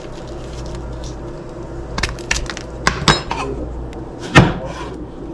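Kitchenware clinking and knocking: several sharp clatters from about two seconds in, with the loudest knock near the end.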